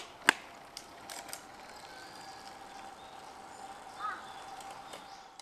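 Road-bike cleats clicking into clipless pedals as the rider pushes off, two sharp clicks in quick succession, then a few lighter ticks from the bike as she rides away. A faint steady high tone and a short chirp about four seconds in sit in the quiet outdoor background.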